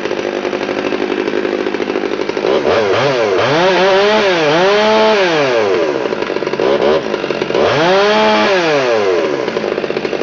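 Chainsaw engine running steadily at high speed, then revving up and dropping back twice, each swell lasting a few seconds.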